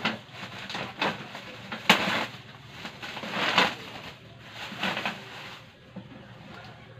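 Clear plastic packing wrap crinkling in about five separate rustles, each a second or so apart, as it is pulled off a new stove and bunched up.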